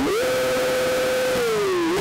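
Sport motorcycle engine revved hard with the bike barely moving: the pitch shoots up, holds steady at one high note for over a second, sinks as the throttle is eased, then is blipped up again near the end.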